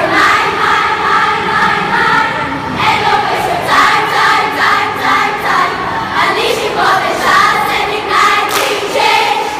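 A group of girls' voices singing together in unison, in phrases of a few seconds each with short breaks between them.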